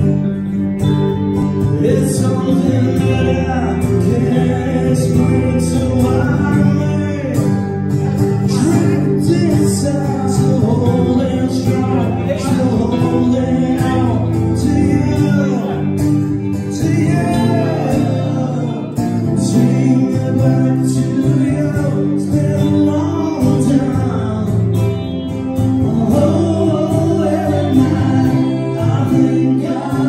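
A live band playing a song: acoustic and electric guitars with singing over a steady beat.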